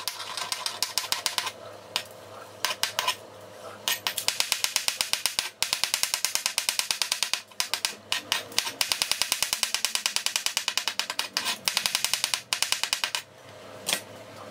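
Chef's knife slicing button mushrooms on a glass cutting board: rapid, even taps of the blade striking the board, in runs of several seconds with a few short pauses.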